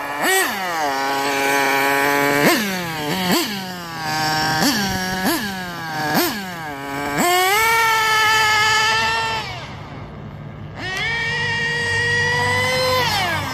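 Nitro engine of a Losi 8IGHT RC buggy, geared with a 14-tooth clutch bell, revving in a series of quick throttle blips, then holding high revs on two longer runs with a brief drop between, the pitch falling away near the end.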